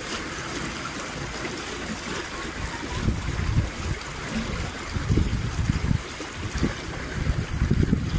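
Water splashing and trickling, with irregular louder low rumbles about three, five and eight seconds in.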